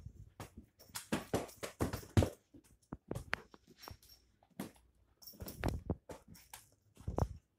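A puppy thrashing and leaping with a squeaky plush snake toy: irregular bursts of flapping and rustling, paws thudding on carpet, and a few short squeaks from the toy.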